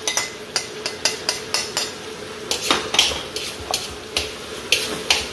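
A metal spoon scrapes and clinks against a china plate and a wok as diced onion is pushed into the pan and stirred in, in irregular sharp clicks and scrapes. Oil sizzles faintly underneath as the onion goes into the hot wok with the garlic and chicken liver.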